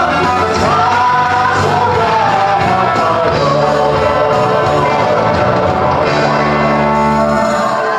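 Church worship song sung live by a team of singers on microphones over band accompaniment with held bass notes.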